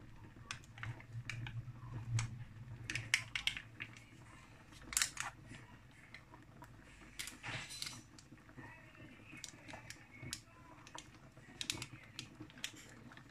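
Scattered small clicks and crinkles of a foil lid being peeled off a plastic portion cup of vegetable stock concentrate, with the cup being handled and squeezed over the pot.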